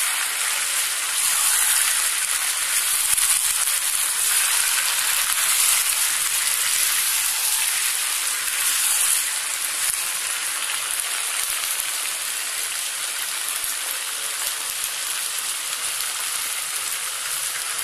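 Chicken pieces, onion and capsicum sizzling steadily in soy sauce and tomato ketchup in a frying pan as they are stir-fried. The sizzle turns a little softer about nine seconds in.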